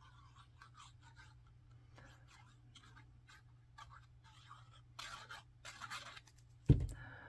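Tip of a squeeze glue bottle scratching faintly along cardstock as lines of glue are drawn on a paper piece, with soft paper rustles. A single dull thump near the end.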